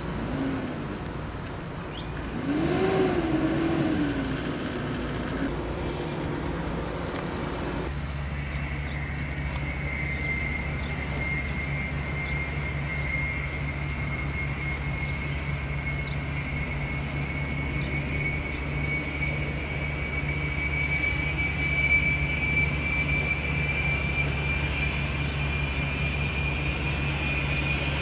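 Learjet 45 business jet's twin Honeywell TFE731 turbofans spooling up for takeoff: a steady low rumble sets in about eight seconds in, and a high whine climbs slowly in pitch as the jet starts its takeoff roll. Near the start a short wavering tone rises and falls.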